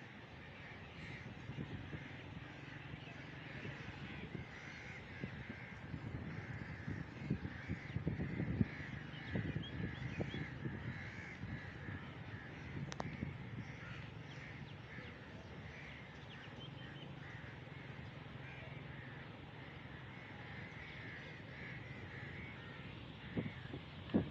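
Many crows cawing over and over, with a low rumble underneath.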